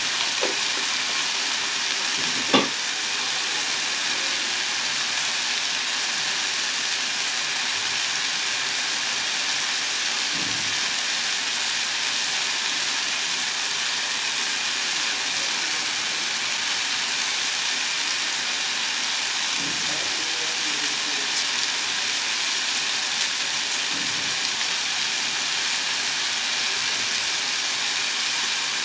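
Tomato sauce and oil sizzling steadily in a cooking pot. A single sharp clink of a utensil against the pot about two and a half seconds in, and a few faint knocks later.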